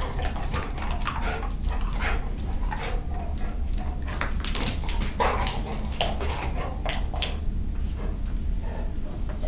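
Young dog at play, making short whining and yipping sounds between many quick clicks and taps of its claws and feet on a hard vinyl floor.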